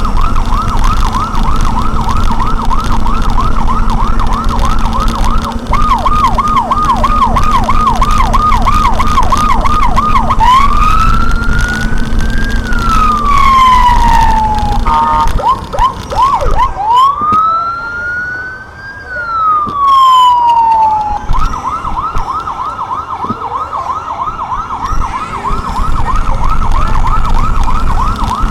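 Electronic vehicle siren switching between tones: a fast warble, then a slower yelp, then two slow wails that rise and fall, and back to the fast warble for the last several seconds. Engine and road rumble run underneath.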